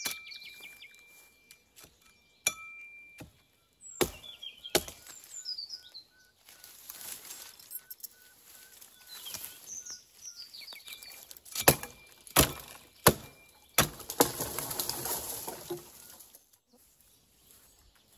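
Wood being chopped: single sharp blows, a few near the start and a quick run of four about twelve seconds in, the first ones followed by a brief ringing tone. Birds chirp in between, and there are a couple of seconds of rustling near the end.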